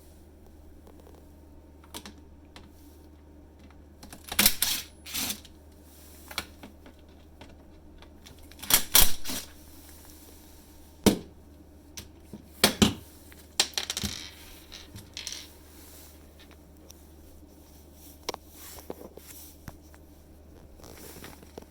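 Scattered clicks, taps and short clatters of small hard parts and tools being handled, in bunches with the loudest about nine seconds in, over a low steady hum.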